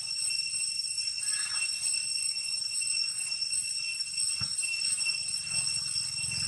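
A steady high-pitched drone made of several fixed tones, holding level throughout, with a single short knock about four and a half seconds in.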